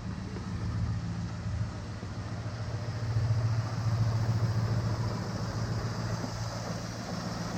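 Ford F-150's 5.0-litre Coyote V8 idling steadily on fresh oil, a little louder for a second or so around the middle.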